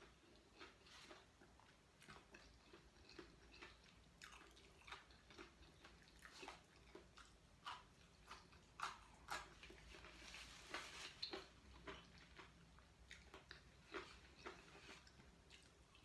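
A person chewing and biting raw vegetables close by: faint, irregular wet clicks from the mouth, busiest around the middle.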